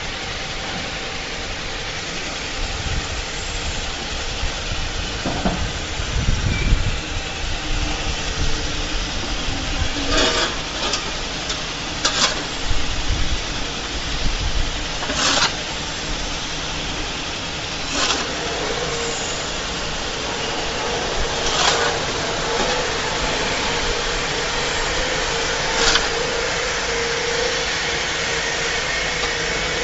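Steel shovel blade scraping across a concrete floor every few seconds while powdery feed meal is turned over and mixed, over a steady mechanical drone.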